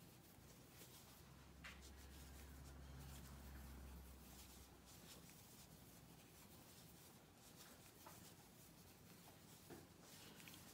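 Near silence with faint, scattered scratchy rustling of yarn being worked with a crochet hook.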